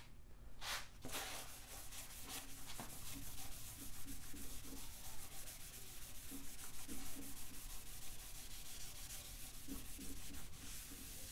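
Blue paper shop towel soaked in transmission fluid being rubbed around a cylinder bore of a 5.3 LS engine block: a continuous scrubbing rub that begins after a brief rustle of the towel about a second in, wiping honing grit out of the freshly honed cylinder walls.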